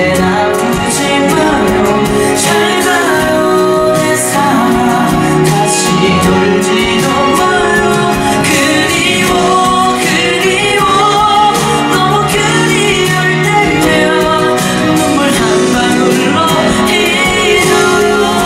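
A male singer's voice, sung live into a handheld microphone over continuous accompaniment music, in a slow, sentimental trot ballad.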